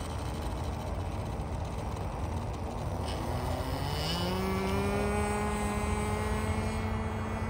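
The O.S. 15 LA two-stroke glow engine of a small balsa RC plane runs at a low idle, then revs up about three and a half seconds in. It then holds a steady, higher buzz at takeoff throttle as the plane rolls and lifts off.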